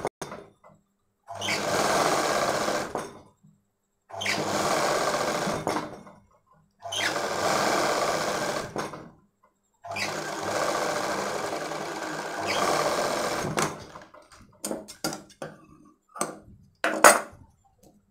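Black straight-stitch sewing machine stitching a binding strip onto the edge of a frock. It runs in four stretches of about two to four seconds, separated by short pauses, and near the end gives way to a few short clicks and knocks.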